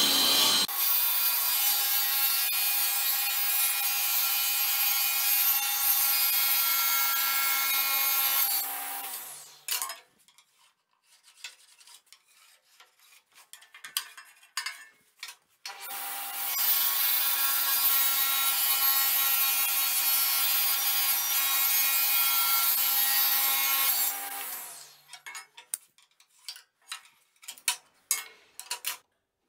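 Kity table saw ripping thin larch strips for sled runners: the saw runs with a steady whine of several tones, then is switched off about nine seconds in and winds down. Wooden strips clatter and knock while they are handled. The saw runs and cuts again from about sixteen seconds in until about twenty-four seconds, winds down again, and more knocks of wood follow.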